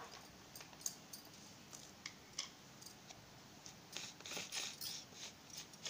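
Faint clicks and scrapes of a steel spoon against a plastic plate while mixing soft semolina dough. They are scattered at first and come in a busier run from about four seconds in.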